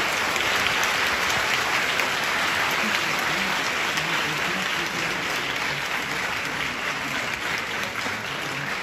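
Audience applauding steadily, the clapping slowly dying down toward the end.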